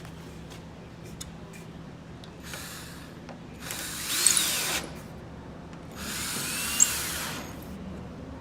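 Power drill driving screws into Western Red Cedar in short runs: a faint one about two and a half seconds in, then two louder runs of about a second each. In each run the motor's pitch rises and then falls as the screw goes in.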